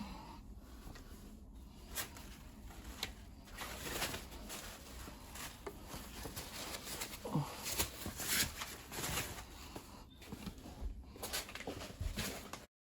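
Handling noise of unpacking: scattered rustles, clicks and light knocks, with a brief falling tone about seven and a half seconds in. The sound cuts off suddenly just before the end.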